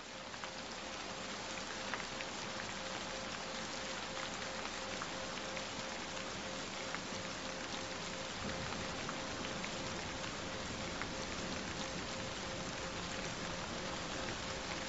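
Steady rain falling, with scattered individual drops ticking, fading in over the first two seconds. A single steady tone is held underneath, the track's added frequency tone.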